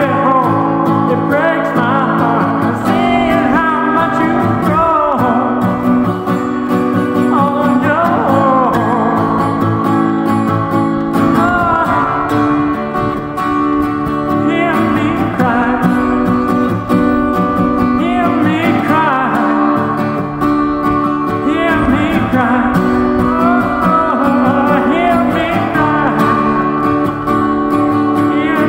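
Acoustic guitar being played in a song accompaniment.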